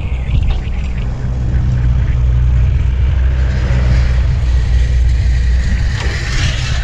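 Honda PCX scooter running at a steady road speed, a continuous low engine and road hum. A brief rushing hiss swells about six seconds in.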